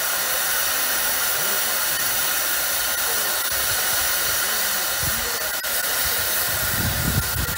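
FS Gr 640 steam locomotive standing still and venting steam from the top of its boiler: a steady, loud hiss.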